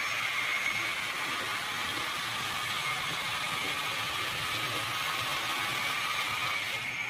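HO scale model train running on its track: a steady whir from its small electric motor and wheels on the rails, with a faint whine that stops shortly before the end.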